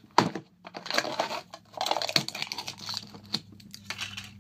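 A plastic pre-workout powder tub being opened by hand: a sharp click of the lid near the start, then stretches of crinkling and tearing with scattered clicks as the seal is peeled off.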